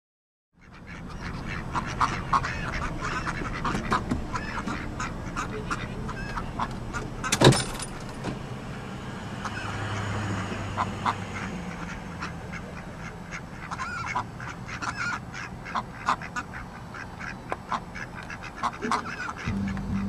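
A flock of mallards and domestic ducks quacking, with many short calls over a steady low rumble. One sharp click about seven and a half seconds in.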